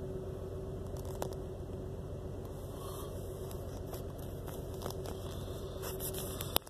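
2001 Jeep Cherokee XJ's 4.0-litre straight-six idling rough and choppy, as if running on only four cylinders: a misfire that sets the check engine light flashing. The engine sound drops away abruptly with a click near the end.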